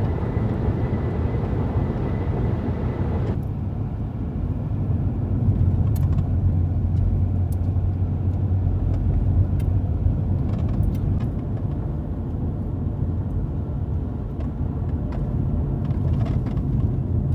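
Vehicle engine running with a steady low rumble, with a few light clicks; the sound changes abruptly and turns duller about three seconds in.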